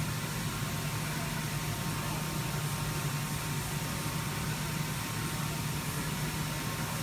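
Steady low hum with an even hiss, the constant background noise of machinery running in a workshop.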